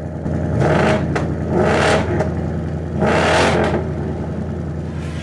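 Ford Mustang GT's 5.0 Coyote V8 idling through its active exhaust and revved three times, each rev rising and dropping back to idle.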